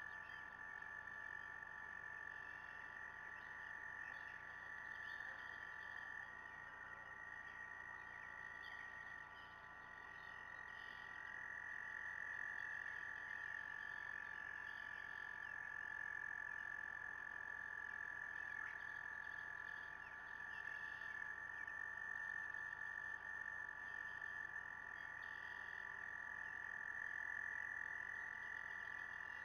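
Distant frog chorus: many frogs calling together as one steady, unbroken high-pitched trilling that swells and fades slightly.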